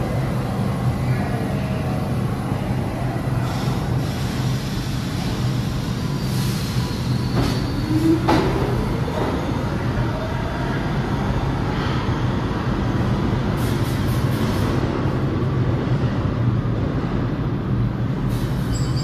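New York City IRT subway trains moving through the station: a steady low rumble of wheels and motors on the rails, with a short rising whine about eight seconds in.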